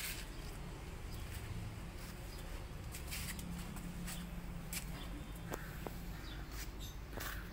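Outdoor background with a low steady hum, a few soft clicks and taps, and two brief faint high calls, one about five and a half seconds in and one near the end.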